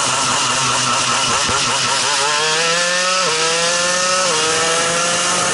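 Shifter kart's two-stroke engine run hard through a corner: the note dips in the bend, then climbs under full throttle, with two quick upshifts about a second apart, each a sudden drop in pitch followed by another climb.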